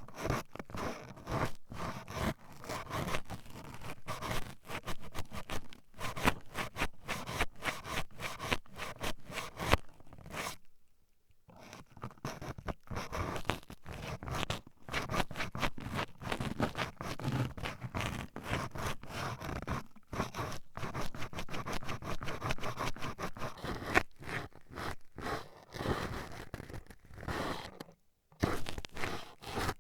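Toothpicks rapidly jabbing and scratching at the ear of a binaural ASMR microphone: a dense, irregular run of scratchy clicks and scrapes. It stops for about a second and a half around eleven seconds in, then carries on.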